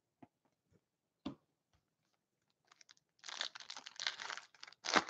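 Foil trading-card pack wrapper crinkling and tearing as it is ripped open by hand. Two faint clicks come first, in the first second and a half.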